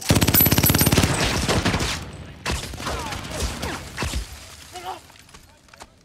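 Belt-fed machine gun firing a long burst of rapid automatic fire for about two seconds, followed by scattered single shots as the firing dies down.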